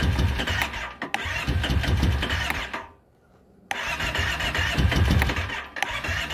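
Kawasaki Brute Force 650i ATV's V-twin being cranked over on its electric starter without catching: a no-start, cranked with the choke closed. The starter is released for about a second near the middle, then cranking resumes.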